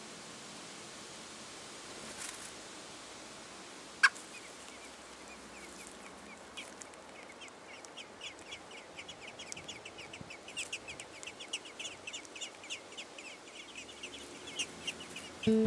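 Robin nestlings begging: rapid short, high chirps that start faint about six seconds in and grow busier and louder toward the end, over a steady hiss. A single sharp click about four seconds in is the loudest sound.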